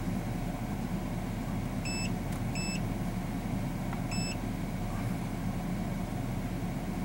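Car engine running steadily, heard inside the cabin, with three short high beeps from an Autel AutoLink AL539 scan tool's built-in speaker as its keys are pressed, about two seconds in, a moment later, and just after four seconds.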